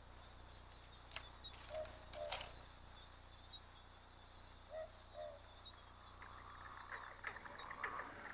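A night chorus of crickets: a steady, high, continuous trill. Soft low calls come in pairs a few times, and a few scattered chirps come near the end.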